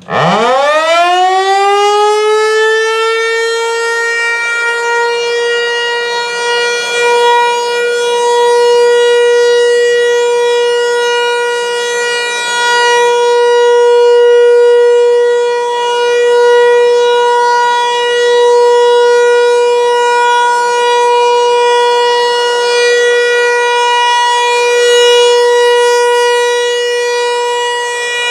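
Federal Signal 508 outdoor warning siren starting its alert: it winds up quickly from a low pitch to a steady, loud single tone with many overtones and holds it, the level swelling and dipping slightly.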